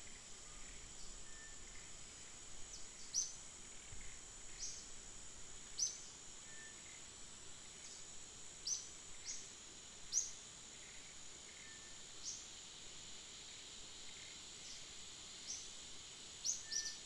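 Faint steady high-pitched insect buzz with about a dozen short, sharp falling bird chirps scattered irregularly through it.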